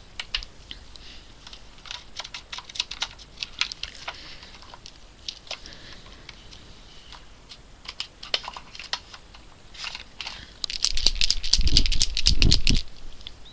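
Small sharp clicks and plastic rattling from marker pens being handled and knocked against their tray and the desk, with a louder clattering burst and a few dull knocks near the end.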